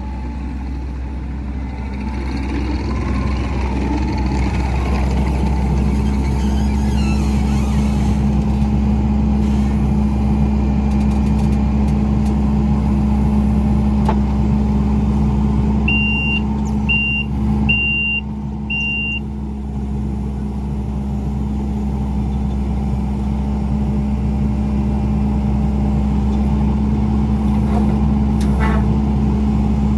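Steady engine and road hum of a truck being driven, heard from inside the cab. About halfway through comes a run of four short high-pitched beeps.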